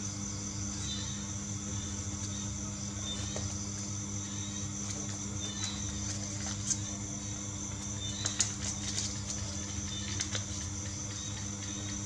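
Origami paper crinkling and creasing as it is folded by hand, with a few sharp crackles in the second half, over a steady low hum and a steady high whine.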